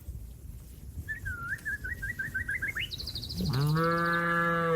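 A cow mooing once: a long, steady call that begins about three and a half seconds in and is the loudest sound. Before it, a small bird sings a quick run of rising notes, and a higher trill overlaps the start of the moo.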